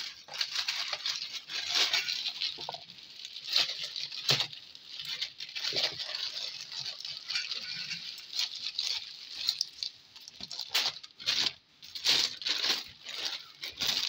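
Thin plastic carrier bag rustling and crinkling as it is handled, broken by irregular light knocks and clicks.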